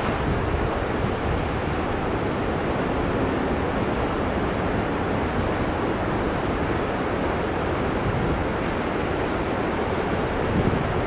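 Ocean surf breaking and washing onto the beach, a steady rushing noise with no single crash standing out.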